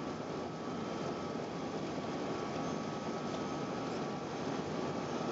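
Steady cabin noise inside an Airbus A380: an even rush of engine and airflow noise with a few faint steady tones through it.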